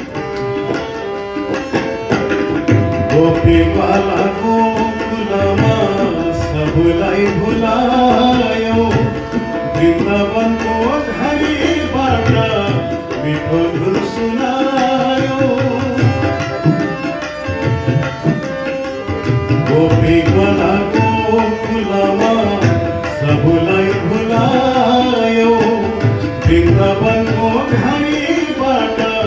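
Nepali devotional bhajan: harmonium playing the melody with tabla keeping a steady rhythm, and a man singing along.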